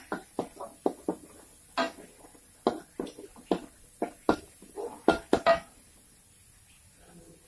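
Metal spatula clanking and scraping against a wok while stir-frying rice: about a dozen sharp knocks, some with a short metallic ring, which stop about five and a half seconds in.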